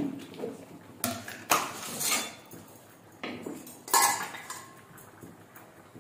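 Stainless steel kitchen dishes, plates and bowls, clanking and clinking as they are handled and set down. There are several separate knocks in the first four seconds, one of them ringing briefly.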